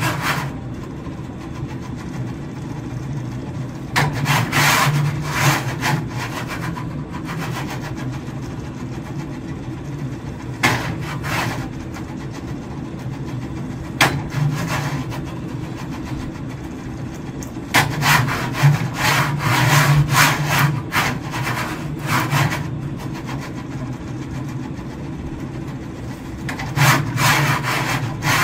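Motor-driven cart of a double inverted pendulum rig running back and forth on its aluminium rail, a steady motor hum with several louder bursts of sliding, rubbing noise as the cart moves hard to swing the pendulum up and catch it. A sharp knock about halfway through as a mallet strikes the pendulum.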